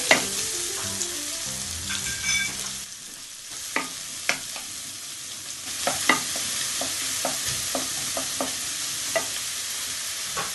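Chopped onion and garlic sizzling in hot oil in a metal frying pan, stirred with a wooden spoon that clicks against the pan now and then. The sizzle dips for a couple of seconds about three seconds in.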